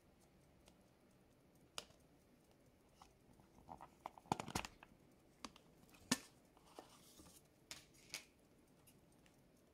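Faint, scattered small clicks and light rattles, bunched about four to five seconds in: a box of replacement watch-bracelet spring bars being got out and opened.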